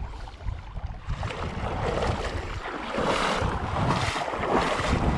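River water rushing and lapping, with wind buffeting the microphone; it grows louder about a second in.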